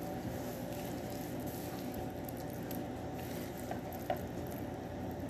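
Hands squishing and kneading a wet rice stuffing and pressing it into hollowed vegetables for mahshi, with a few soft clicks over a steady low hum.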